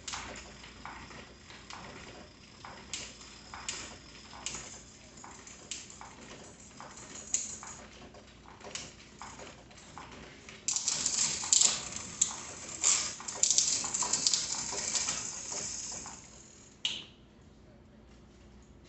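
Bicycle drivetrain being worked on a repair stand: a string of separate metallic clicks, then, about eleven seconds in, a louder run of rattling and ticking from the chain and rear cogs as the cranks are turned, which stops sharply near the end.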